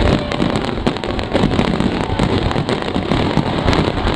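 Fireworks display going off: a dense, continuous run of bangs and crackles.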